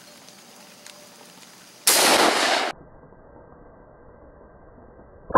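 Muzzleloader shots: a loud blast about two seconds in that holds for under a second and cuts off sharply, and another loud blast starting just before the end.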